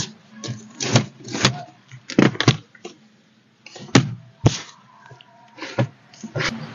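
A string of irregular clicks and knocks as the padded centre armrest of a Volkswagen Lamando L is handled, slid forward and lifted, its plastic mechanism clunking.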